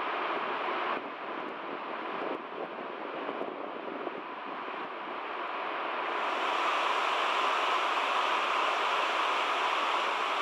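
Water overflowing and cascading down the stepped concrete spillway of a roller-compacted concrete dam: a steady rushing noise that grows louder and hissier about six seconds in.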